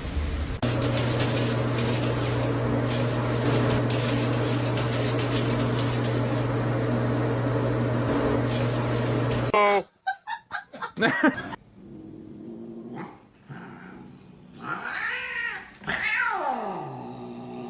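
A loud steady whirring noise with a low hum runs for about nine seconds and cuts off suddenly. After a few quick clicks, a cat meows and yowls in drawn-out calls that fall in pitch.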